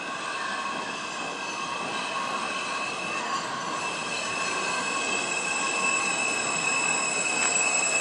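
R160B subway train pulling into the station: the cars rumble along the rails with a steady high-pitched wheel and brake squeal, growing a little louder as the train draws alongside.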